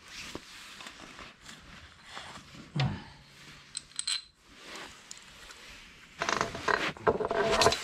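Metal clinks and knocks of steel differential parts being handled in and against a Dana 30 axle housing, ending in a louder clatter of ringing metal clinks over the last two seconds as the parts go into the case.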